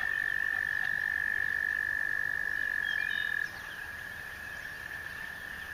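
A frog's long, steady, high-pitched trill, dropping in level about three and a half seconds in.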